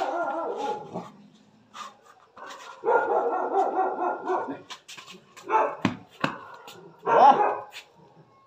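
Puppy barking in several bouts, with sharp thuds from the football being kicked, the heaviest about six seconds in.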